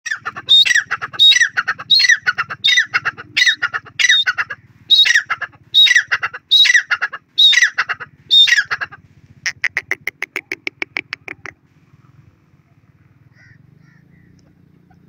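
Grey francolin (teetar) calling loudly: about a dozen sharp, falling calls come roughly one every three-quarters of a second, then a rapid rattling run of short notes for about two seconds. After that only a faint low rumble remains.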